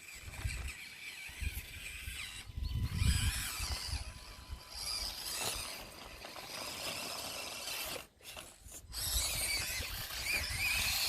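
Small electric motors and gears of 1/24-scale Axial SCX24 RC crawlers whining as they crawl, the pitch wavering with the throttle and briefly cutting out about eight seconds in.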